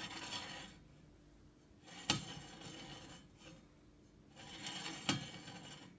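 Table saw blade being turned slowly by hand against a dial indicator's probe to check its runout: three spells of rubbing and scraping, with a sharp click about two seconds in and another about five seconds in.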